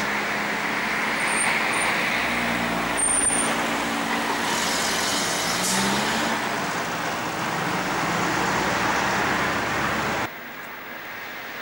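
Motor vehicle engine and road noise, with the engine pitch rising briefly about six seconds in. The level drops abruptly about ten seconds in.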